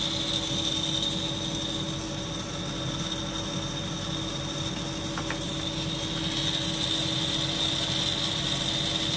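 Small brushed DC motor from a Milwaukee M18 wet/dry vacuum running off a bench power supply, a steady hum with a high whine. The owner puts the noise down to a worn front bearing, or possibly a bushing.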